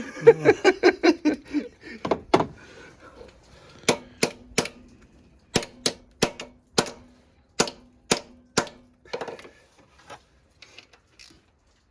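A run of sharp knocks on the engine's valve cover, about a dozen in an uneven rhythm, as it is tapped to work it loose.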